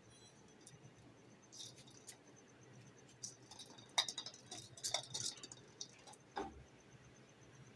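Scattered light taps and clicks of a small ball being batted and rolled by cats across a brick floor. The taps come in an irregular cluster about four to five and a half seconds in, with a duller knock near six and a half seconds.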